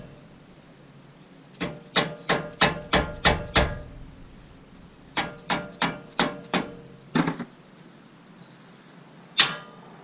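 Hammer tapping a wheel hub assembly to knock it loose from the steering knuckle: metal strikes with a slight ring, in two quick runs of six or seven blows, about three a second, then a single blow near the end.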